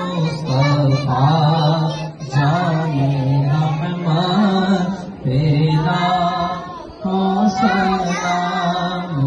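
A man chanting an Islamic devotional verse into a microphone in long, held phrases of about two seconds each, with short breaks between them. A thin steady high tone runs underneath.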